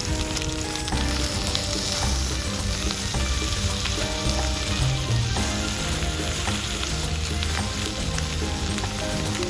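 Stir-fry sizzling steadily in a hot iron frying pan.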